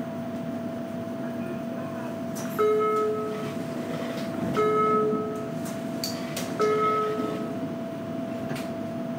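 An electronic chime inside a JR Kyushu 815 series electric train car sounds three times, about two seconds apart, each a short two-note tone, over the car's steady electrical hum.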